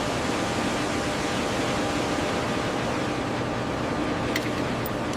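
Steady rushing mechanical noise with a faint low hum, the kind of air-handling or machinery ambience heard inside a ship or equipment room. A couple of faint ticks come near the end.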